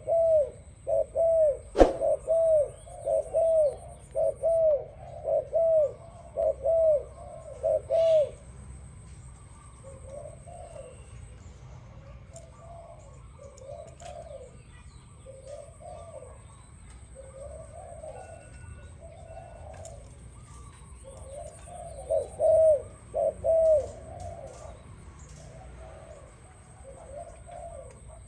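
Dove cooing in a steady run of short coos, each rising and falling, about two a second: loud for the first eight seconds, softer through the middle, louder again past twenty seconds. A single sharp click about two seconds in.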